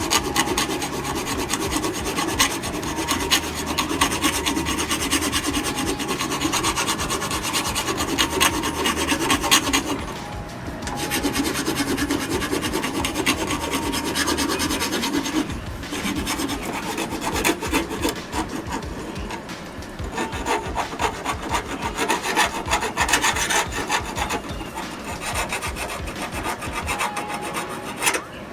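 Hand file rasping back and forth across the edge of a steel lawnmower blade, sharpening the cutting bevel in steady continuous strokes, with short pauses about ten and fifteen seconds in.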